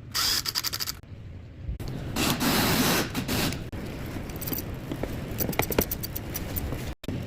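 Scraping and scratching in separate bursts: a loud rapid rasp at the start, a longer rasp about two seconds in, then a scatter of sharp ticks. The sound cuts out abruptly near the end.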